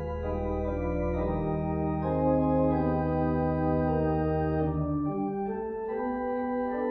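Organ playing slow, sustained chords that change every second or so, with deep bass pedal notes that drop out about five seconds in.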